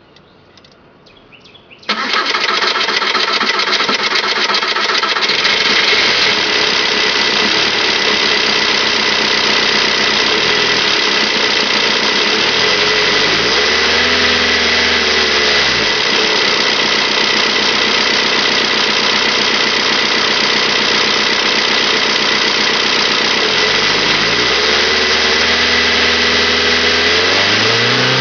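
2002 Volkswagen Jetta TDI's 1.9-litre turbodiesel, on a car with a hard-starting problem, catches suddenly about two seconds in after a few faint clicks. It then runs with a steady diesel clatter, its note rising and falling twice.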